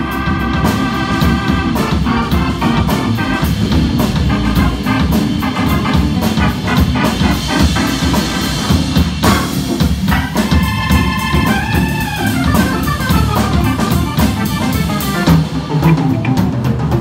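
Hammond organ played live with a drum kit: sustained organ chords and lines over drums and cymbals, with a bending, rising-and-falling figure between about 10 and 13 seconds.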